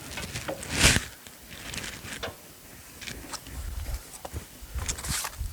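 Scattered knocks, clicks and rustling from handling work at the sawmill bed while the log is clamped and checked for square, with a louder scrape about a second in and another near the end; the saw is not running.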